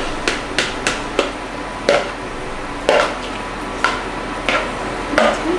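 A kitchen utensil knocking and scraping against cookware about ten times at an irregular pace, as the last of a batter mixture is emptied into a frying pan.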